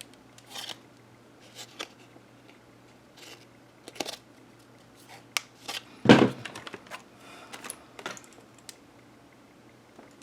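Small plastic clicks and light knocks from handling a TI-83 Plus calculator and its AA batteries, scattered and irregular, with a louder knock and short rattle about six seconds in.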